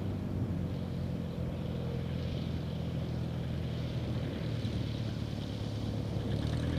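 Engine and propeller of a ski-equipped SuperMoose Cub-type bush plane running steadily as the plane slides through slush, with a hiss of thrown slush. The engine note rises near the end.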